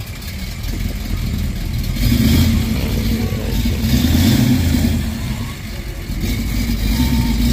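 A muscle car's V8 runs as the car rolls slowly past at low speed, its exhaust note swelling with the throttle about two and four seconds in and again near the end.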